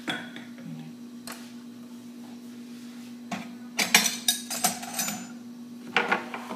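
Cookware and utensils being handled on a kitchen counter: scattered clinks and knocks, with a burst of clattering about four seconds in and another near the end, over a steady low hum.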